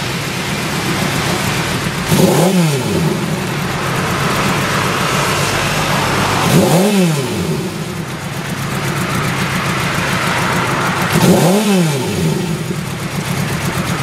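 Honda CB750 Four air-cooled inline-four engine idling, blipped three times, about four and a half seconds apart; each time the revs rise quickly and fall back to idle.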